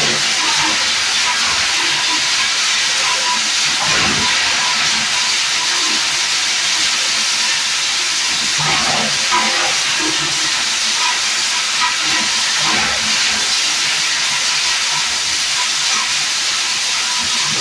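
Plastic lumps grinder running under load, a loud steady rushing noise with brief louder surges every few seconds.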